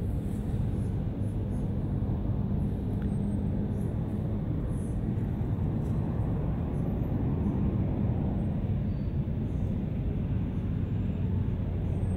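Steady low rumble of outdoor background noise with a faint hum.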